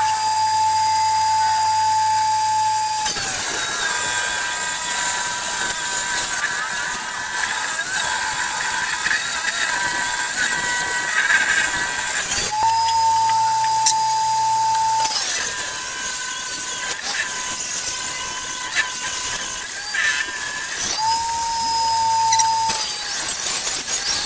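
Electric woodworking power tool working a teak beam. The motor's high, steady whine runs free for a few seconds, then dips a little and turns noisy as it cuts into the wood. This happens over and over: free-running near the start, around the middle and shortly before the end, and cutting in between.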